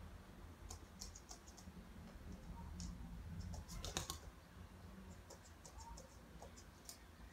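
Faint, irregular light clicking and ticking, with one louder click about four seconds in and a quick run of clicks near the end.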